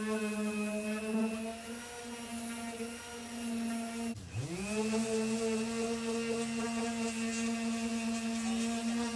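A handheld electric power tool's motor runs at a steady high speed. About four seconds in it briefly slows sharply and spins straight back up, as when the trigger is let go and squeezed again.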